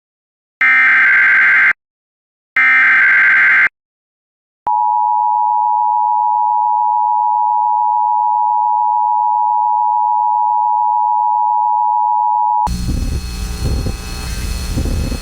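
Emergency Alert System header: the last two of three SAME digital data bursts, each about a second long, then after a short gap the steady two-tone EAS attention signal (853 and 960 Hz) held for about eight seconds. Near the end the tone cuts off into hiss and hum from the relayed broadcast audio.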